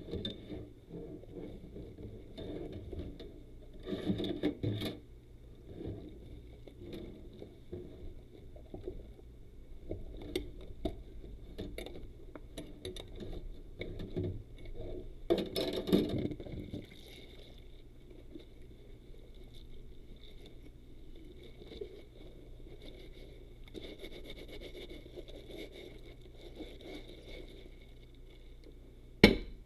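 Rubber dishwashing gloves scrubbing and rubbing, an irregular scraping with louder bursts about four and fifteen seconds in, and a sharp knock near the end.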